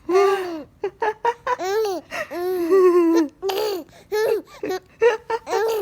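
Baby boy laughing in a run of high-pitched giggles, each burst arching up and down in pitch, broken by quick catches of breath.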